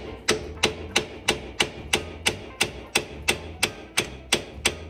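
Steady hammer blows, about three a second, on the pinion of a 1964 Ford Falcon 7.25-inch rear differential, tapping the pinion out of its housing so the leaking pinion seal can be replaced.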